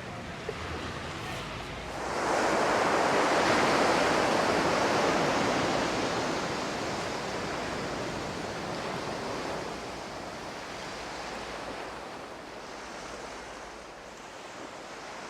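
Surf on a beach: a wave breaks about two seconds in and its wash slowly fades away.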